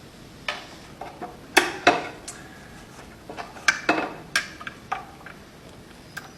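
Small metal parts and hand tools clicking and clinking against the metal of a buttonhole sewing machine as its needle thread knife and throat plate are taken off: a string of separate sharp clicks and taps, with the loudest cluster about a second and a half to two seconds in and another around four seconds in.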